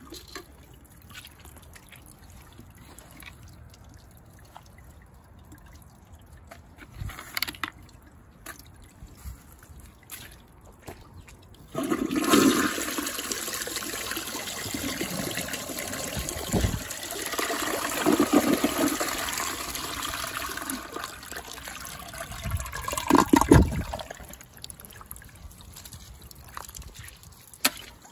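Gravity-fed toilet flushing: about twelve seconds in, water suddenly rushes into the bowl and swirls for roughly twelve seconds, with gurgles that peak in a loud gurgling drain near the end. A few small knocks come before the flush, and a quieter running of water follows it.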